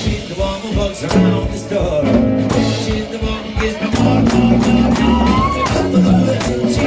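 Live band playing a song: a woman singing over electric guitar, bass and a steady beat.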